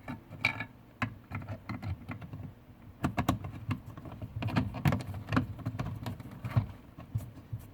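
Irregular clicks, taps and rattles of small metal and plastic parts handled by hand while refitting a car's power-window switch panel and its bolt.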